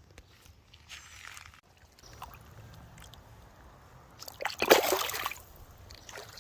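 Water splashing and sloshing, with a brief splash about a second in and a much louder splash just before five seconds in.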